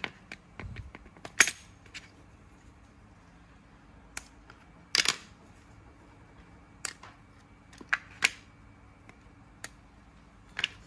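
Plastic quick-release bar clamps clicking and clacking as they are released and taken off a glued wooden block: about ten separate sharp clicks at uneven intervals, the loudest about five seconds in.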